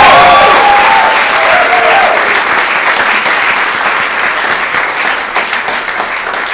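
Studio audience applauding a comedian walking onstage, loudest at the start and slowly dying down.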